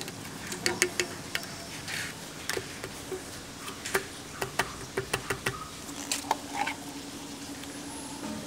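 Irregular sharp clicks and taps of plastic as grey PVC pipe fittings are handled and knocked into place by hand. A faint steady low hum comes in about six seconds in.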